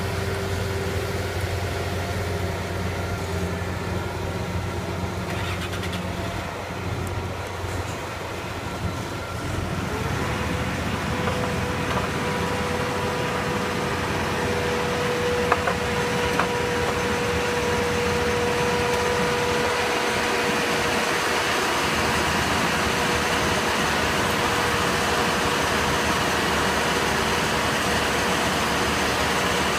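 The diesel engine of a 100 HP rubber-tracked tractor running steadily as it tills a flooded, muddy field. About ten seconds in, the sound changes to a steady rushing noise with a constant hum.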